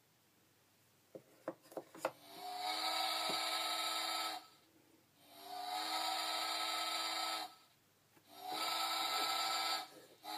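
A wooden puzzle piece knocks a few times as it is set into its slot in a sound puzzle board. The board's small electronic speaker then plays a recorded ship's horn sound effect: three long, tinny blasts of about two seconds each.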